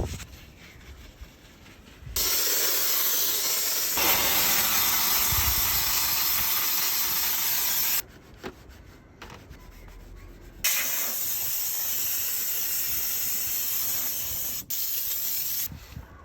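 A cleaning jet hissing steadily in two long bursts of about six and five seconds, with a pause between them.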